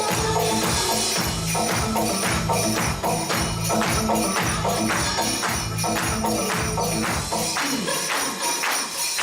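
Recorded dance music with a steady beat, heavy bass and jingling, tambourine-like percussion; the bass drops out for the last second and a half or so.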